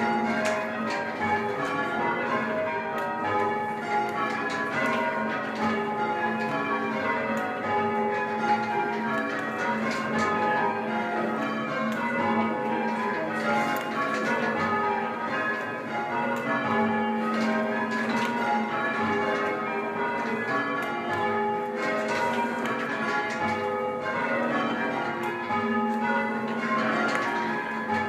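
Church tower bells being change-rung, full-circle, one bell striking after another in an unbroken, rapid sequence of overlapping ringing tones.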